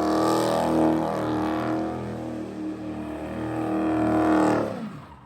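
Dodge Charger's exhaust, resonators deleted, running at a steady raised engine speed with a pulsing note; near the end the pitch falls and the sound dies away.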